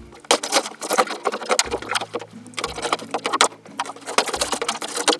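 A knife sawing and stabbing through the side of a thin plastic juice bottle, the plastic crackling and crinkling irregularly as the blade works through it.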